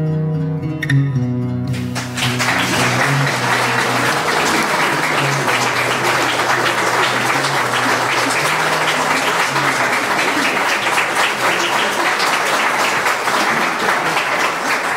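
Acoustic guitar music, then about two seconds in an audience breaks into steady applause, with the guitar fading beneath it.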